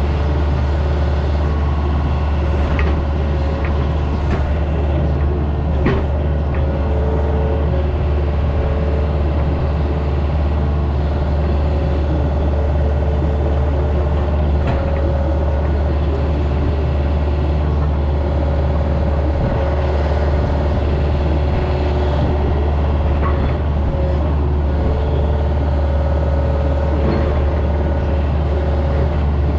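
Engine of a compact construction machine, such as an excavator, running steadily at constant speed, with a few sharp knocks scattered through.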